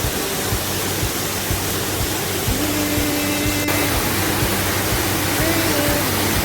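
Steady rushing noise of a waterfall, with faint held notes of background music over it.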